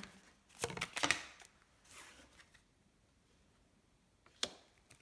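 Oracle cards handled on a wooden table: a few light card clicks and flicks in the first second and a half, then one sharp tap about four and a half seconds in as a card is laid down on the spread.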